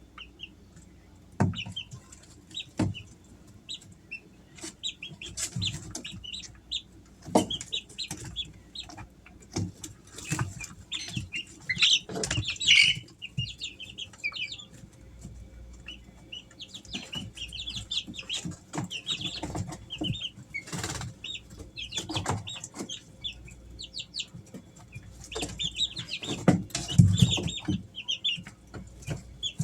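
Three-week-old Easter Egger chicks peeping: many short, high chirps in quick succession. Scattered sharp knocks and scrapes are heard among them.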